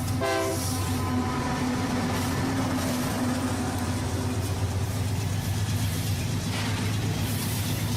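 Real train recording: a chord train horn sounds and cuts off about half a second in, then a locomotive runs on with a steady low rumble and rolling rail noise. A hiss rises near the end.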